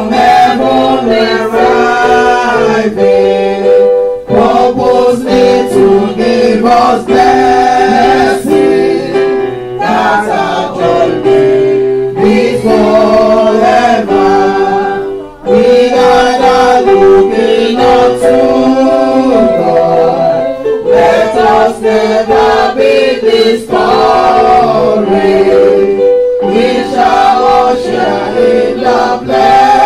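Choir singing a hymn in long held phrases.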